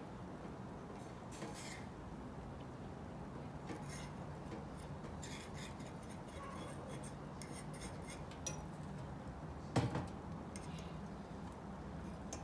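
Eating utensils clinking and scraping against a dish, in scattered small clicks, with one sharper knock about ten seconds in.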